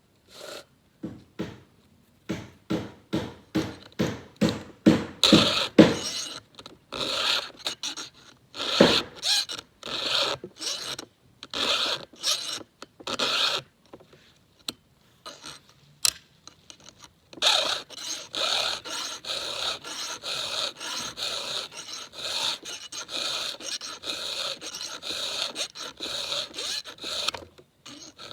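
Round chainsaw file being stroked by hand across the cutters of a new Husqvarna X-Cut saw chain, a run of quick rasping strokes. Near the middle the strokes pause and there are two sharp clicks, then a steady run of strokes resumes.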